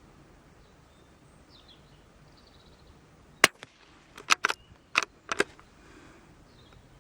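A single .22 LR shot from a Brno (CZ 452) bolt-action rifle, a short sharp crack about halfway through, followed within two seconds by a quick series of metallic clacks as the bolt is worked to eject the case and chamber the next round.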